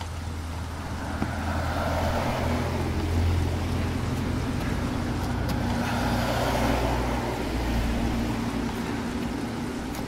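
A motor vehicle's engine running steadily with a low hum, with two passing swells of road noise, a few seconds apart.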